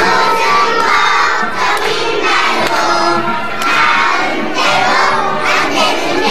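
A group of young children singing together in chorus, many voices at once.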